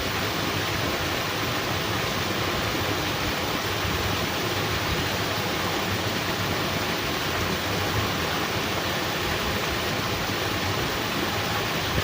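Steady, unbroken rush of heavy rain and flowing water, an even hiss that does not change.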